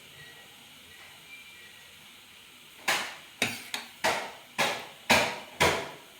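A series of about six sharp knocks or taps, roughly two a second, starting about three seconds in, each dying away quickly.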